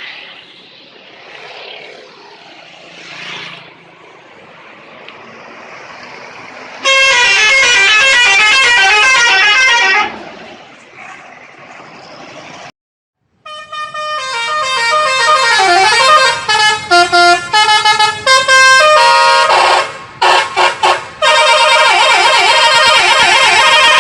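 Bus 'telolet' horn, a set of multi-tone musical air horns, playing quick melodic runs of stepping notes. The first short burst of about three seconds comes over traffic noise. After a brief cut, a longer and louder run swells up and breaks off a few times before carrying on.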